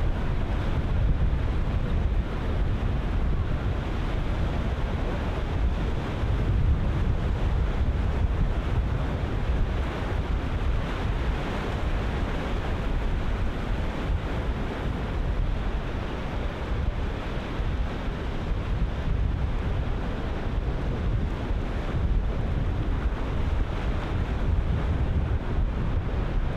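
Ocean surf breaking in a steady wash, with strong wind buffeting the microphone and a heavy low rumble throughout.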